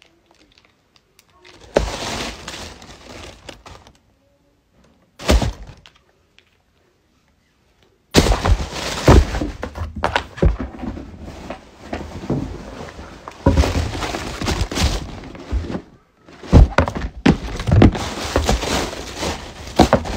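Tissue paper rustling and crumpling, with knocks and thuds from handling a shoe box, in loud irregular bursts. There is one short knock about five seconds in, and the rustling runs almost without a break through the second half.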